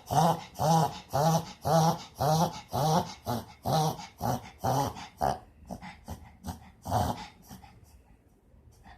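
Dog reverse sneezing: a rapid, regular run of noisy pulled-in breaths, about two a second. They weaken after about five seconds, come once more strongly about seven seconds in, and then stop.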